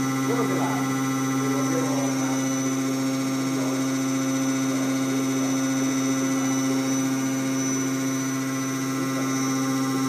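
MPF2 hydraulic-cylinder tube flushing machine running, its pump unit giving a steady, even hum.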